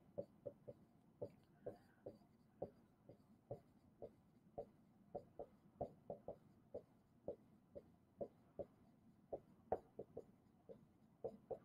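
Faint, uneven taps of a stylus writing by hand, about two or three clicks a second.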